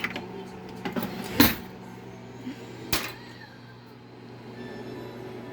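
Three sharp knocks of household handling, the loudest about a second and a half in, over a steady low hum.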